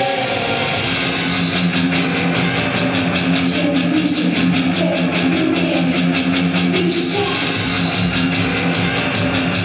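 Instrumental passage of a pop-rock song with no singing: guitar playing over a steady beat.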